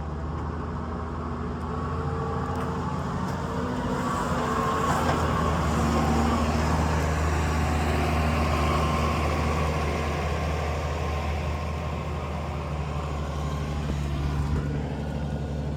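International Harvester 140 farm tractor engine running steadily. It grows louder and brighter for several seconds in the middle, then settles back.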